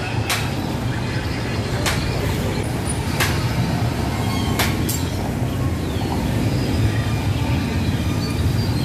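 A vehicle's steady low engine and road rumble heard from inside while riding, with sharp clicks or knocks every second or two.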